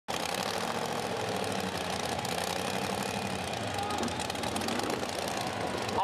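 The JCB GT backhoe dragster's big-block Chevrolet V8 running at high revs with a steady, loud, dense exhaust noise.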